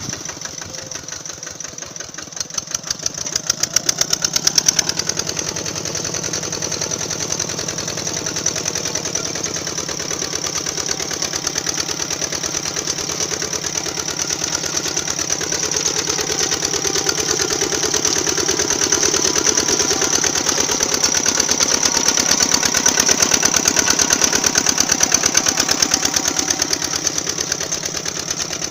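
Homemade remote-controlled mini công nông tractor running with a fast, steady engine chugging that carries on through the whole stretch and grows louder about four seconds in.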